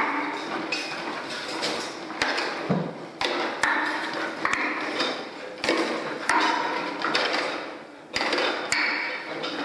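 Small plastic scent jars being handled in and out of grey plastic pipe holders on a scent-detection wheel: a run of irregular plastic clacks and knocks.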